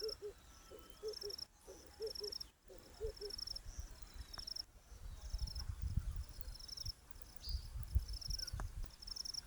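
Crickets chirping in short, high pulses about once a second. Over the first three seconds, a dove coos in low notes in groups of two or three. A low rumble comes in during the second half.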